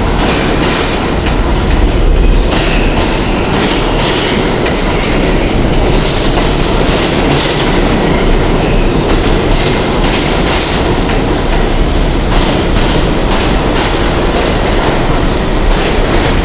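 An R62 New York City subway train on the 3 express runs along the platform, a loud, steady rumble of cars and wheels with repeated clicking and clatter over the rail joints.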